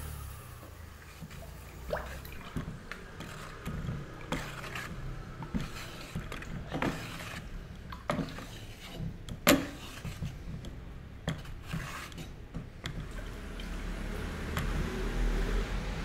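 Wooden stick stirring liquid glaze in a metal pail: sloshing, with irregular knocks of the stick against the pail, the loudest about halfway through.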